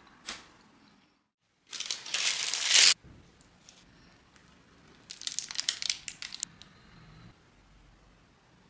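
Crunchy crumpling and tearing sounds from a sugar-coated bombolone and a plastic piping bag of custard being handled and squeezed. There is one loud stretch of just over a second, then a crackling, crinkling stretch about two seconds later.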